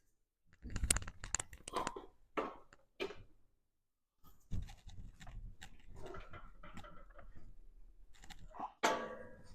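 Clicks and metal knocks from a hand-operated sheet-metal flange brake as a 14-gauge sheet-steel piece is clamped and bent. There is a short silent gap about three seconds in, then irregular clicking and scraping, with a louder knock near the end.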